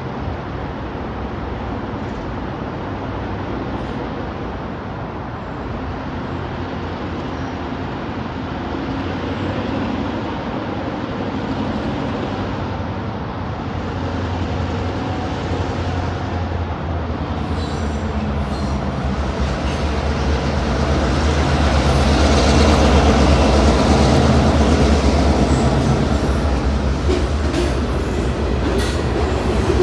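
Ballast train led by two EMD GP35R diesel locomotives approaching and going by: a steady diesel engine drone that grows louder as the locomotives draw near, loudest about three-quarters through, then hopper cars rolling past with wheel clicks near the end.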